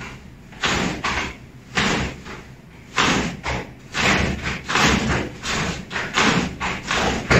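Karate gi swishing and snapping with thuds as the hips are twisted sharply back and forth in the hip-rotation drill, a series of quick strokes about one to two a second.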